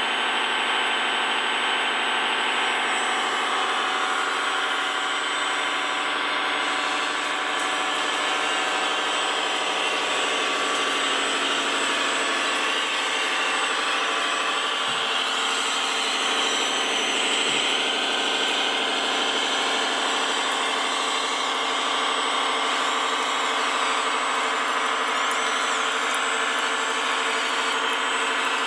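Radio-controlled model construction machine running with a steady, engine-like hum whose pitch holds level.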